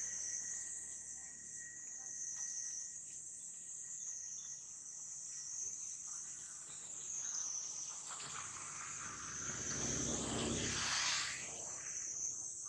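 Steady high-pitched chorus of insects buzzing throughout, with a broad low rumble that swells and fades about ten seconds in.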